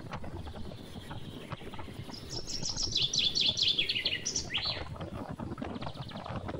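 A bird calling a fast run of high chirps, each falling in pitch, for about two seconds in the middle, ending in one quick rising note. Underneath is a steady rush of wind and water from a moving boat on choppy sea.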